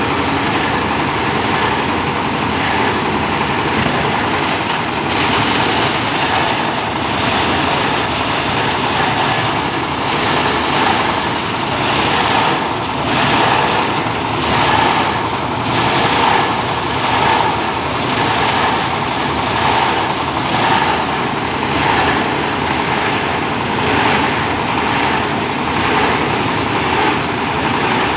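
Plastic packaging shredder running: a steady, loud machine drone from its motor and cutting rotor. Through the middle it swells and fades evenly, a little over once a second.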